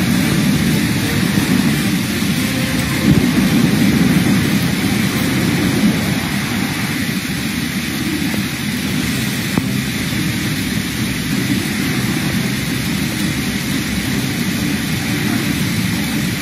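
Fast-flowing flash floodwater rushing across a street in heavy rain: a steady, loud, low rumble of churning water with a hiss of rain over it.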